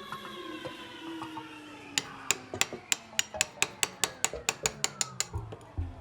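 A run of sharp, light taps, about three a second at first and quickening to about five a second as they fade.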